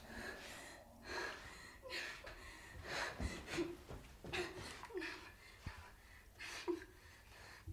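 A woman breathing hard in short gasps, about one breath a second.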